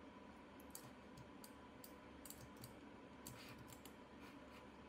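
Near silence with scattered faint clicks of a computer mouse and keyboard, over a faint steady hum.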